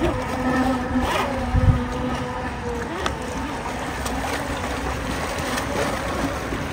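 Radio-controlled model boat running on the water, its electric brushless motors giving a steady, slightly wavering whine over wind buffeting on the microphone, with one brief low thump about a second and a half in.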